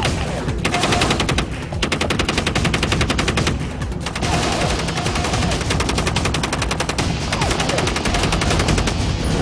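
FN M240B belt-fed machine gun firing 7.62 NATO rounds in long bursts of fully automatic fire, with short pauses between bursts near the start, after about a second and a half, and around four seconds in.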